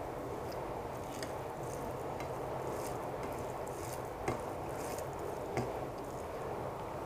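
Fingers mixing steamed rice with fried amaranth greens on a plate by hand: soft squishing of wet rice, with a few small sharp clicks of fingertips and nails against the plate, the strongest about four seconds in, over a steady low hiss.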